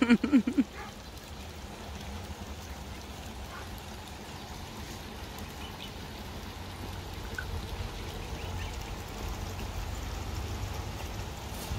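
Steady trickle and splash of a shallow creek, with a few faint peeps from goslings and ducklings at the water's edge.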